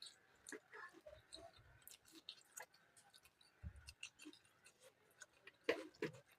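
Faint chewing of food close to the microphone, with scattered small wet mouth clicks and smacks and one louder click near the end.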